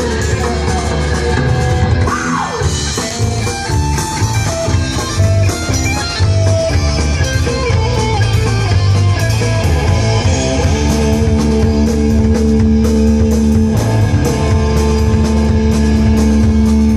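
Live rock band playing an instrumental passage: electric guitar over a drum kit. About two seconds in a guitar note slides down in pitch, and from about eleven seconds in the guitar holds a long sustained note over the drums.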